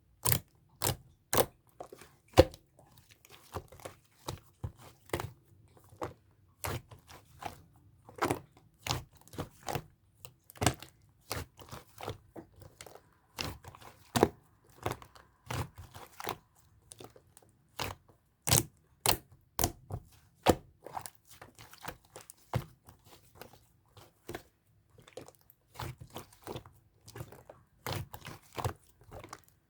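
Slime being pressed and stretched by hand, giving off sharp clicks and pops at irregular intervals, about one or two a second.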